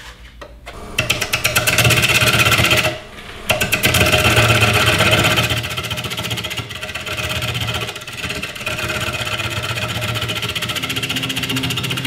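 Turning tool cutting the outside of a green walnut bowl blank spinning between centers on a wood lathe. The cut comes in about a second in as a rapid stream of clicks, typical of the tool striking the high spots of an uneven, not-yet-round blank; it breaks off briefly around three seconds, then goes on more quietly and steadily in the second half.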